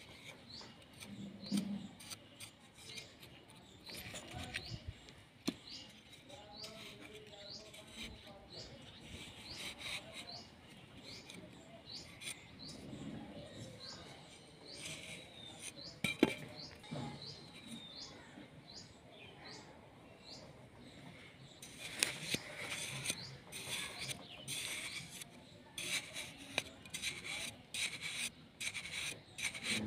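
A metal hand sickle scraping and digging in dry sand, in short rasping strokes that come thicker in the last few seconds. Birds chirp through the first half.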